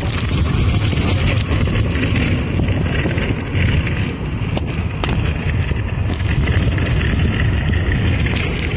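Steady road and wind noise inside a moving car: a loud, even low rumble with a hiss over it and a few faint clicks.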